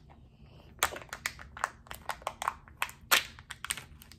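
Rapid, irregular clicking and snapping of small plastic pieces as a Kinder Joy toy capsule is pried open and handled, starting about a second in.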